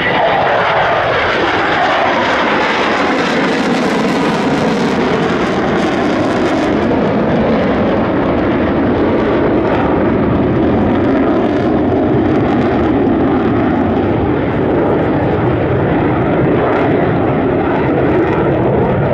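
Jet noise from F-16 fighter jets making a fly-by: a loud rushing noise that falls in pitch over the first few seconds as they pass, then carries on steadily and loud.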